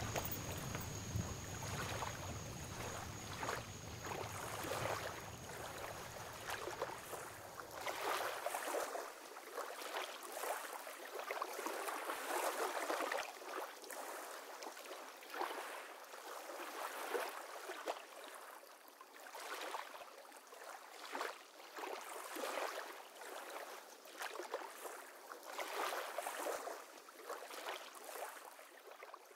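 Beach ambience of small waves washing on the shore, a steady wash of water noise that rises and falls in irregular surges. The low rumble drops out about eight seconds in, and the sound fades out at the very end.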